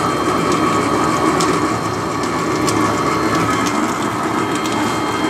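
Battery-powered sugarcane juice machine running, its rollers crushing a stalk of sugarcane: a steady motor whine over a dense grinding noise, with a few faint clicks.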